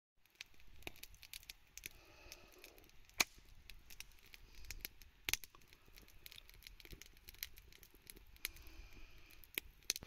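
Wood fire crackling: irregular sharp pops and snaps over a soft hiss, with two louder snaps a few seconds in.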